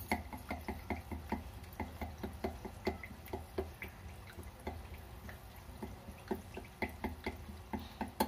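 Corn-flour tortilla chips deep-frying in hot oil, crackling with irregular small pops, several a second, over a low steady hum.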